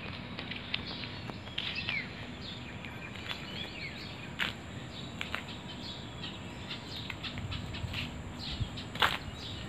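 Outdoor ambience: a steady background hum with scattered short bird chirps and frequent small clicks and steps from the phone being carried while walking, with a sharper knock about nine seconds in.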